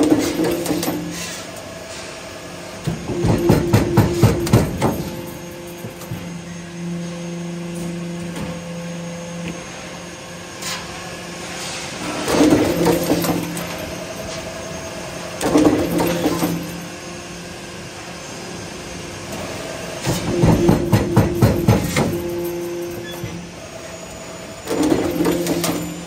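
Hydraulic perforating press of a cable tray roll-forming line punching slots into steel strip. It works in short bursts of rapid, clattering strokes, about six in all, with a steady machine hum between them.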